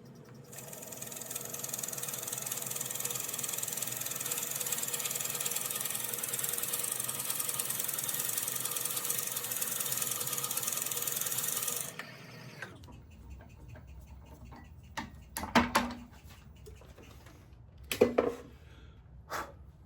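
Drilling into a dense goncalo alves hardwood blank: a steady grinding whir that starts about half a second in and cuts off about 12 seconds in. After it come a few sharp knocks and clicks, the loudest two about 15 and 18 seconds in.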